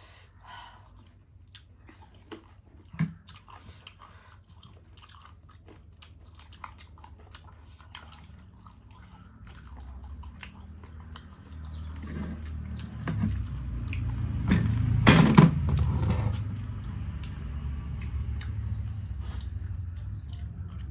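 Close-up chewing and mouth clicks of someone eating a meal of rice and chicken. From about twelve seconds in a low rumble builds, with one loud crackle about fifteen seconds in.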